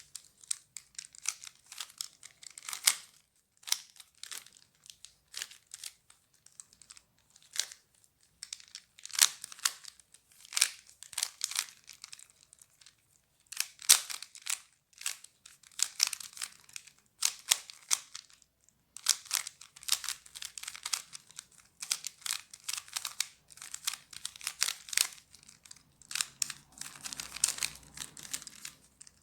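Rubik's cube being solved by hand, its plastic layers turned quickly in bursts of clicking and rattling with short pauses between.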